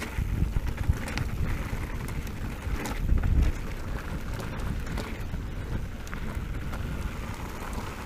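Wind rushing over the microphone and the tyres of a Specialized Turbo Levo electric mountain bike rolling over a loose gravel track, with a louder jolt about three seconds in.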